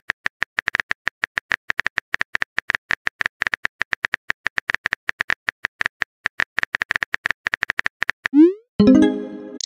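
Simulated phone-keyboard tap clicks in a texting-story app, about seven a second, as a message is typed. Near the end they stop, and a rising blip and a short chime-like tone sound as the message is sent.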